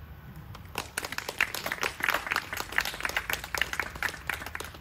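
Small audience applauding, a few people clapping by hand, starting about a second in and thinning out near the end.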